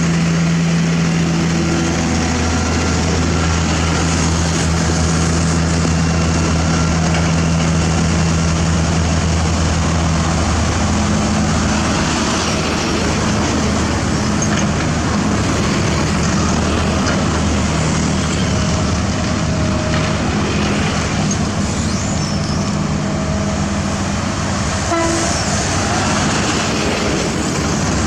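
Heavy diesel engines of road-construction machinery running steadily, with the engine note stepping up in pitch about ten seconds in.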